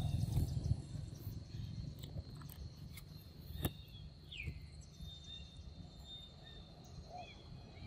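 A young macaque handling and biting into a ripe mango: a few sharp soft clicks and wet bites. Under it runs a steady high insect drone, with a couple of short falling bird chirps, and a low rumble fades out within the first second.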